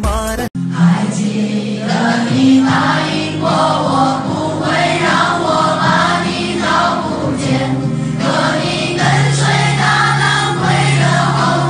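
Background music: a song with singing voices over steady low notes, beginning abruptly about half a second in as the previous track cuts off.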